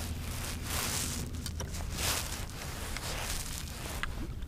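Wind buffeting the microphone in uneven gusts over a low steady rumble; a faint steady hum stops about one and a half seconds in.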